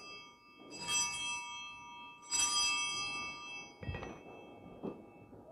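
Altar (Sanctus) bells rung in three peals about a second and a half apart, each a bright multi-tone jingle that rings on and fades, marking the elevation of the consecrated host. A short dull thump follows about four seconds in.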